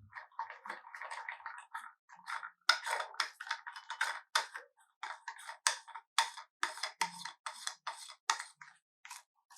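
Handling of a plastic phone holder and its packaging: a rustle for about two seconds, then a run of irregular sharp clicks and taps, two or three a second.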